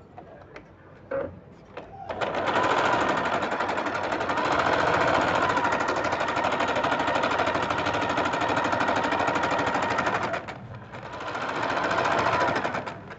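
Janome 6000 electric sewing machine stitching at a fast, steady pace for about eight seconds, stopping briefly, then running again for about two more seconds near the end. A few light clicks come before the first run.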